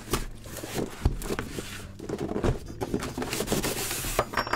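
Cardboard box flaps and packaging rubbing, scraping and rustling as the contents are pulled out of a shipping box, with a few knocks against the desk.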